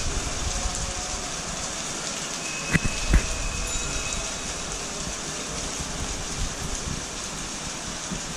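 Steady rain falling and splashing on wet stone paving, with two sharp knocks close together about three seconds in.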